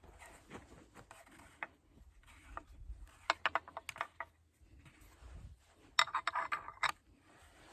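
Quick metallic clicking and rattling from steel gate hardware being handled, in two short bursts about three and six seconds in.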